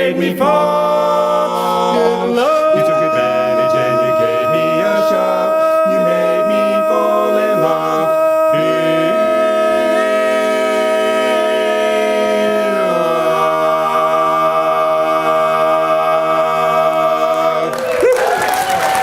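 Barbershop quartet singing a cappella in close harmony, ending on a long held final chord that shifts once partway through and is released near the end, when applause begins.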